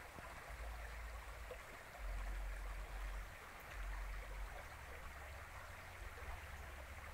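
Steady rushing noise of running water, with a low uneven rumble of wind on the microphone.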